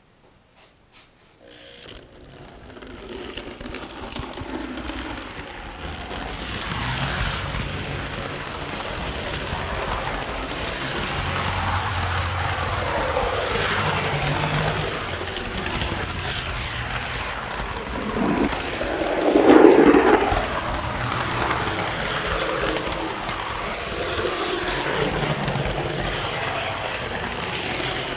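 Model train running on its track, heard from a car riding right behind the locomotive: a steady mechanical rumble of wheels on rails that starts about two seconds in, builds, and swells briefly louder about two-thirds through.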